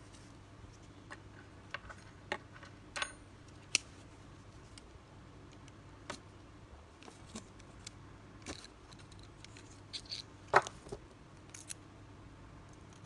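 Irregular small metallic clicks and taps of steel pliers jaws closing on and knocking against a fishing hook as it is handled, the loudest about ten and a half seconds in.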